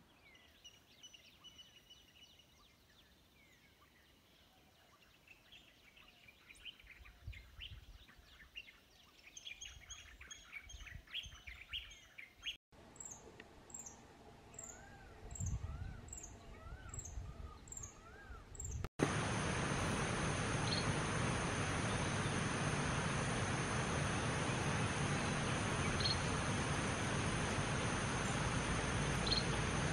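Wild birds chirping and singing, with scattered calls at first, then a run of repeated rising-and-falling whistles about once a second along with high chirps. About two-thirds of the way through, a loud steady hiss takes over, with a few faint high chirps above it.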